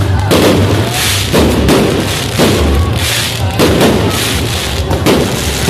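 Fireworks going off in a dense barrage: loud bangs and crackling bursts, several a second, with no pause.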